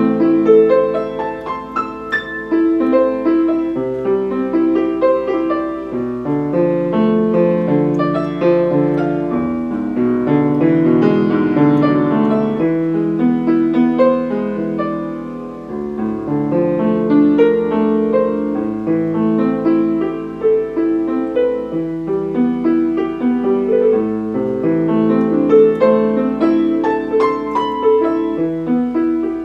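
A Steinway piano being played, one continuous flowing passage of many overlapping notes with no breaks.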